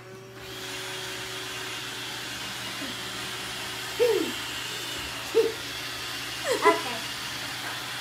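Roomba robot vacuum running with a steady whir that starts just after the beginning. Three short whining cries rise above it, about four, five and a half and six and a half seconds in.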